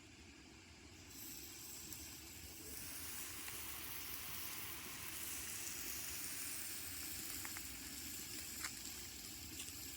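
Steak sizzling on a hot stone over campfire coals. The sizzle starts about a second in and grows stronger over the next couple of seconds, with a few small pops near the end.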